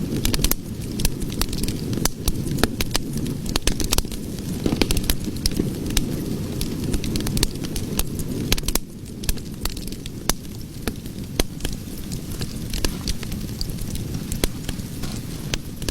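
Cooking fire burning: a steady low rumble of flame with frequent sharp crackles and pops. The rumble eases a little about nine seconds in.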